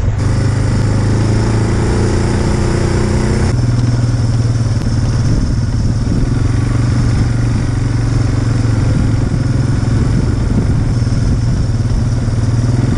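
Suzuki KingQuad 4x4 ATV's single-cylinder engine running steadily at cruising speed, heard from the rider's seat. The higher part of the sound drops away abruptly about three and a half seconds in, and the engine runs on unchanged.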